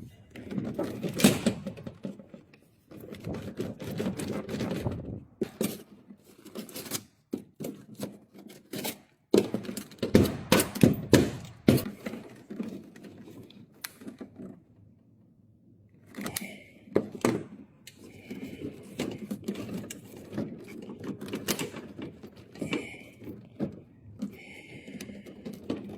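Irregular knocks, clicks and clatter of objects being handled, with rustling between them and a quieter pause about halfway through.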